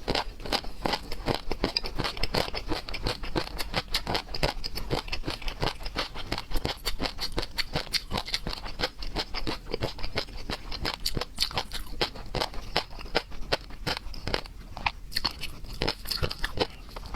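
A person chewing and crunching on seafood: a dense, unbroken run of crisp clicks and crackles, several a second.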